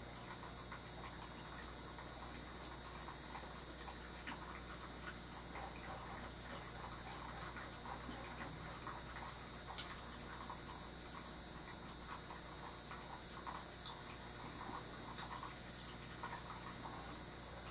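Faint studio room tone with a steady low hum, and scattered small irregular ticks and clicks.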